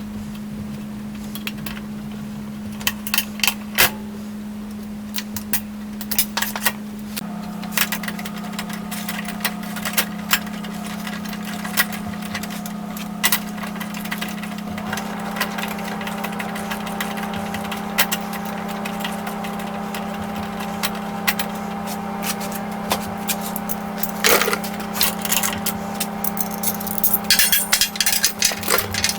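Scattered sharp clicks and taps of hand tools and small metal parts being handled while a lifter arm is removed and fitted on a scroll saw, over a steady electrical hum; a second, higher droning tone joins about seven seconds in.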